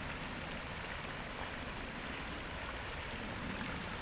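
Shallow river water running over rocks in a riffle: a steady rushing and rippling.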